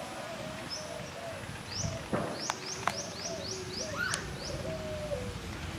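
Birds chirping, with a quick run of about six rising chirps a little past the middle.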